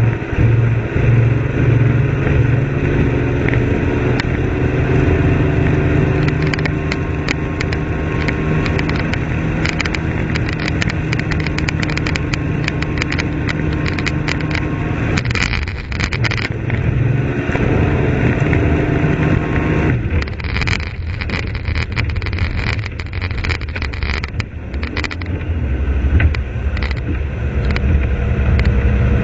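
A '1500' vehicle's engine running with a hiccup. Its steady note shifts several times, with many sharp ticks over the middle stretch.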